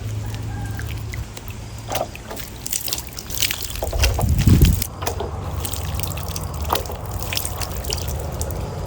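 Water trickling and dripping, with scattered clicks of handling and a dull thump about four and a half seconds in.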